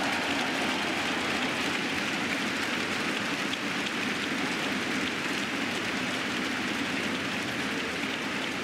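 Large arena crowd applauding: a steady, dense clapping.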